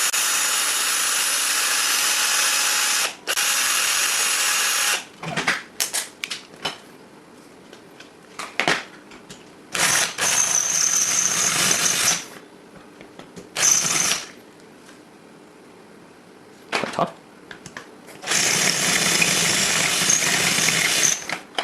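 Power drill with a 6mm bit drilling out the axle pin of a suitcase roller wheel, run in about five bursts of up to three seconds each, with small clicks and knocks between them as the bit is repositioned.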